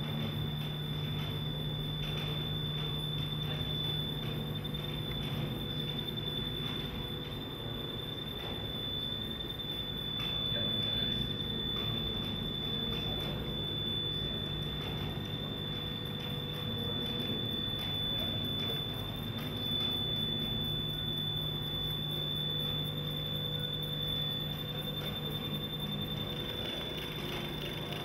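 A steady, unchanging high-pitched tone, with a low hum and room noise beneath it.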